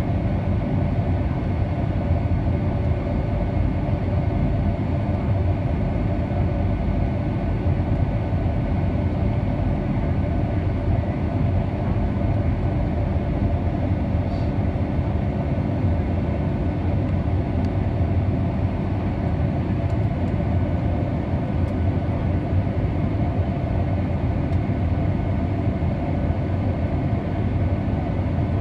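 Boeing 757-200's jet engines running at taxi power, heard from inside the passenger cabin as a steady low hum with a faint steady whine above it, while the airliner taxis before takeoff.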